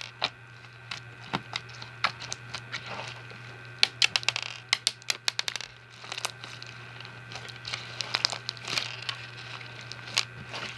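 Slime full of fishbowl beads being squeezed and kneaded by hand, giving quick irregular crackling clicks that come thickest about four to six seconds in.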